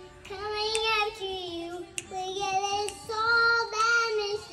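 A young child singing without clear words, holding long, steady notes one after another.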